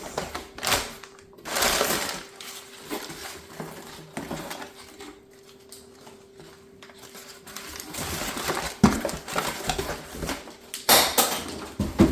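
Packaging being handled and opened by hand: irregular crinkling and rustling, loudest about two seconds in and again near the end, with a few sharp knocks.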